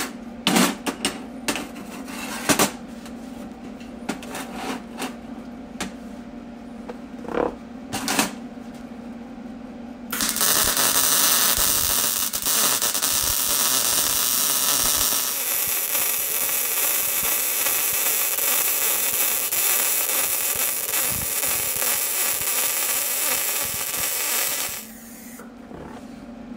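A few light metal clinks and knocks, then a 110-volt MIG welder's arc crackles and hisses steadily for about fifteen seconds, laying a bead on 3/16-inch steel with .023 wire, and cuts off suddenly near the end.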